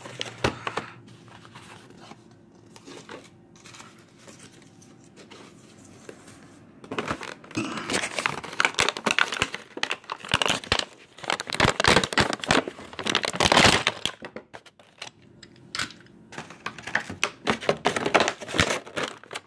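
Clear plastic blister packaging being handled, crinkled and torn open: a quiet stretch, then dense crackling from about a third of the way in, a short pause, and more crackling near the end.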